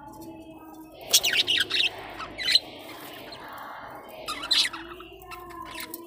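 Budgerigars chirping and squawking, with two loud bursts of rapid, shrill calls: one about a second in lasting over a second, and a shorter one about four and a half seconds in.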